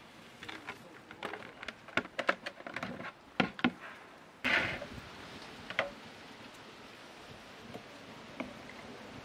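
Carrots clattering in a plastic colander and plastic bowls knocked and set down on a wooden table: a quick run of sharp clicks and knocks. About halfway through this gives way to a steady outdoor hiss with a couple of light taps.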